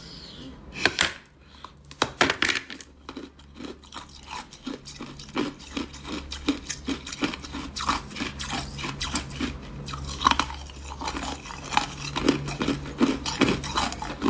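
Ice being bitten and chewed close to the microphone: hard crunching and cracking at about three to four crunches a second, with the loudest bites about a second in, at two seconds, and around ten and twelve seconds.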